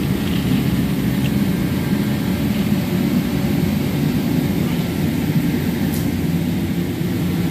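Steady, even low roar of machinery running in a large truck repair shop, with one faint short click near the end.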